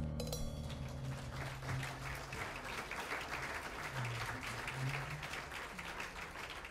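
Audience applauding at the end of a jazz number, as the band's last notes die away in the first second; the applause begins to fade near the end.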